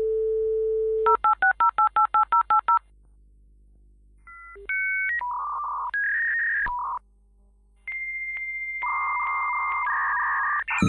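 Telephone dial tone, then about ten touch-tone digits dialled in quick succession. After a short pause comes a series of steady electronic phone-line tones at changing pitches.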